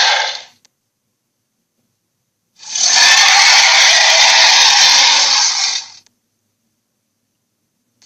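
A dragon-like monster roar sound effect: a harsh, noisy roar lasting about three seconds, cut cleanly out of dead silence, with the tail of the previous roar ending just at the start.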